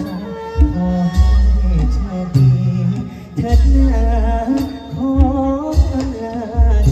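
A live Thai song: a voice singing a wavering melody with vibrato over band accompaniment, with heavy bass notes coming in and out.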